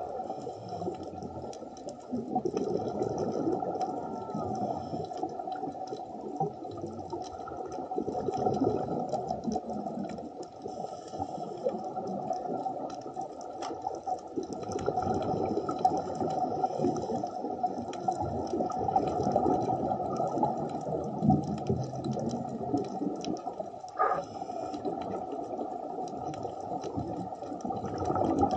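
Muffled underwater water noise and bubbling, swelling and fading every few seconds, with one brief click near the end.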